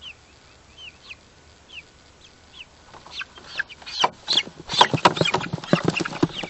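Young meat chicks peeping: a few scattered high cheeps at first, then from about four seconds in a louder, dense chorus of peeping.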